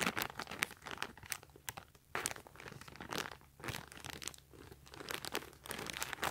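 Clear plastic packaging crinkling and crackling in the hands as it is handled and turned over, in uneven, quick crackles.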